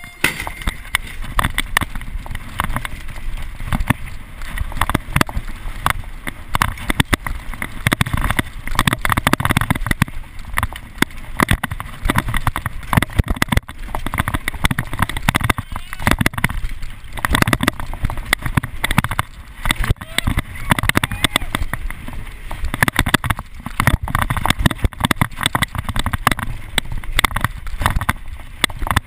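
A mountain bike ridden fast down a dirt slalom course: continuous rattling of the bike with frequent sharp knocks over the bumps, and steady tyre noise on the dirt.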